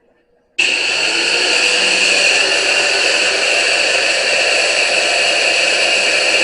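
Angle grinder cutting through sheet-steel floor pan, starting abruptly about half a second in and then running at a steady, even pitch under load.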